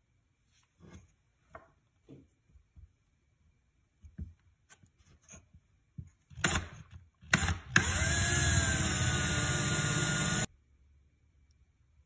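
A few light knocks as the work is handled, then a cordless drill bores a shallow hole in a wooden ukulele fretboard for a fret-position dot. It starts with a brief burst, runs steadily for about three seconds with a steady whine, and cuts off suddenly.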